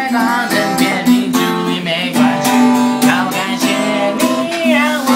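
Guitar strummed in a steady rhythm, with a man singing along over it.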